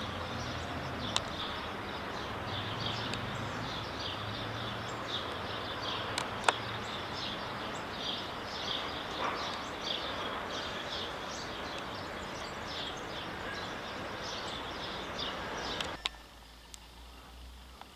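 Many small birds chirping in quick, irregular calls over a steady outdoor background hiss, with a few sharp clicks. About 16 seconds in the sound cuts to a much quieter indoor room tone.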